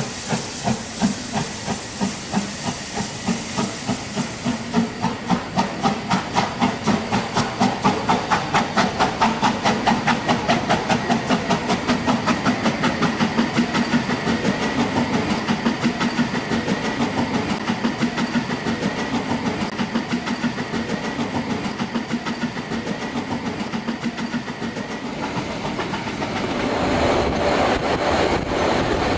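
Narrow-gauge steam locomotive pulling away with heavy exhaust chuffs, the beats quickening from about two a second and then fading as the train moves off. Near the end there is a steadier running noise of the train riding along the track.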